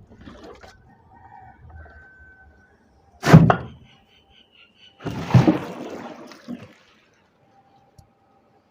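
Water dumped out of a tipped-over container, splashing in two loud gushes: a short one about three seconds in and a longer one about two seconds later.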